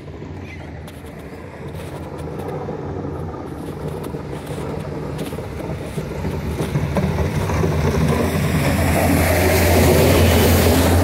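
A vehicle approaching on the road, its engine hum and tyre noise growing steadily louder and peaking near the end.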